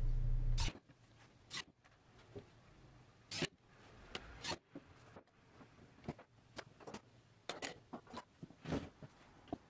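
Light clicks and taps, a dozen or so spaced irregularly, as metal drawer sides and fittings are handled and clipped onto a drawer base. A steady low hum stops under a second in.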